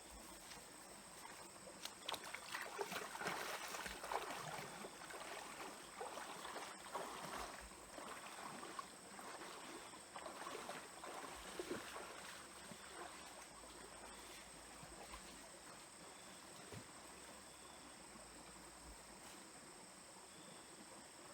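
Water in a small stream: irregular splashing and sloshing for the first half or so, settling into a soft, steady trickle.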